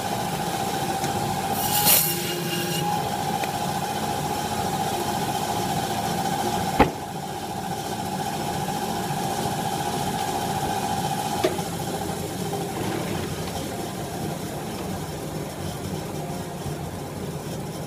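Meat band saw running with a steady whine. About two seconds in the blade rasps briefly through a bone-in short loin steak. A sharp knock comes about seven seconds in, and the whine ends about eleven and a half seconds in, leaving a steady hum.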